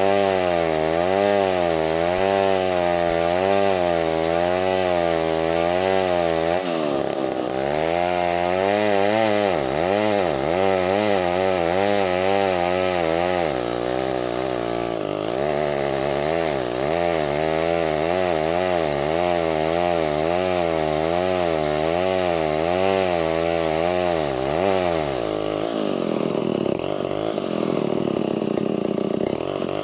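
Stihl 070 two-stroke chainsaw running under load while cutting timber, its engine pitch rising and falling about once a second as the bar works through the wood.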